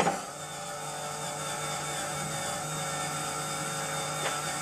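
Small motor of a model rotor rig starting abruptly and driving the spinning rotor head through its belt and gear train: a steady whirring whine with several fixed tones. There is a faint tick about four seconds in.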